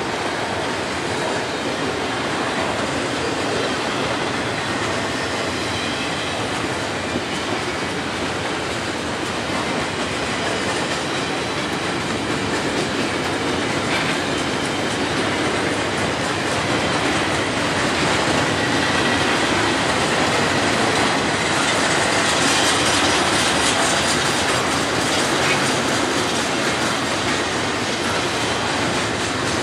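Double-stack intermodal freight train's loaded well cars rolling past: a steady rumble and clatter of steel wheels on the rails, growing a little louder about two-thirds through, with a faint high wheel squeal.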